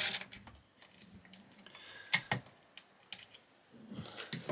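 A last couple of quick clicks at the very start, then scattered light clicks and taps of small parts being handled during a teardown.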